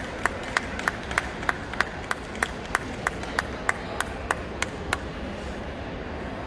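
Steady, rhythmic hand clapping at about three claps a second, stopping about five seconds in, over background crowd noise.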